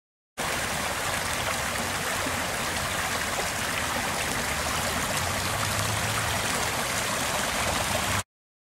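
Shallow rocky brook rushing and splashing over stones in small cascades: a steady water rush that starts suddenly about half a second in and cuts off just before the end.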